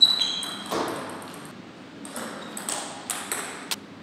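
Table tennis rally: the ball clicking off the bats and bouncing on the table, a string of sharp pings. The hits come quicker in the second half.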